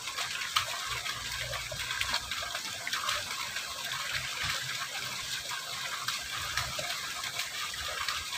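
Water rushing steadily along a small concrete-walled irrigation ditch, with a fairly strong current.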